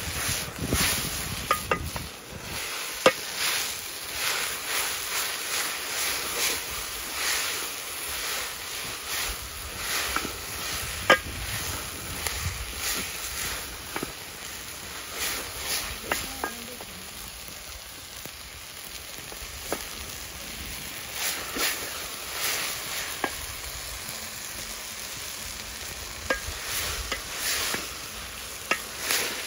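A wooden spoon stirring chopped greens in an aluminium pot, scraping the metal in quick repeated strokes about twice a second, with a few sharp knocks of the spoon on the pot. The greens are frying in oil and sizzle under the stirring.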